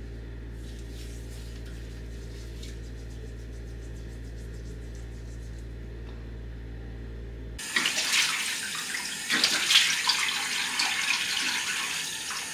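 A low steady hum, then about seven and a half seconds in a tap is turned on and water runs hard into a sink, a loud even rush.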